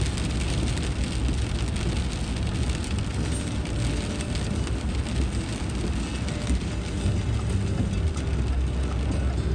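Steady road and engine rumble of a moving vehicle, heard from inside its cab.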